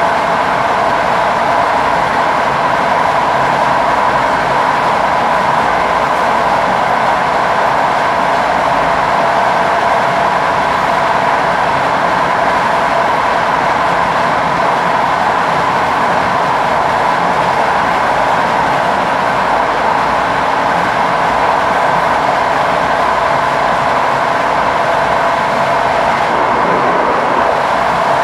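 Train running steadily along the line, heard from on board: a continuous, even running noise with a constant whine.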